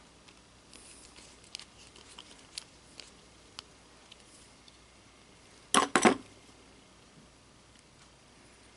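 Small metal parts of a musket lock and hand tools being handled during reassembly: light scattered clicks, then a quick cluster of louder metallic clacks about six seconds in.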